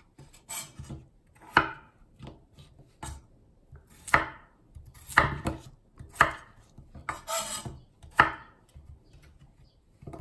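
Chef's knife cutting peeled potatoes into large chunks, each stroke ending with the blade striking an end-grain wooden cutting board, about once a second.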